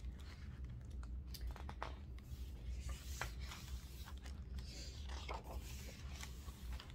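Pages of a picture book being turned and handled: faint, irregular paper rustling and soft clicks over a low steady hum.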